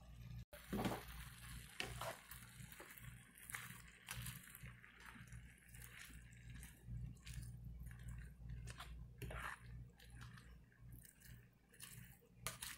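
A spatula stirring a steaming pan of potatoes, sausage and vegetables: soft wet squishing and scraping with a faint sizzle, over a low steady hum.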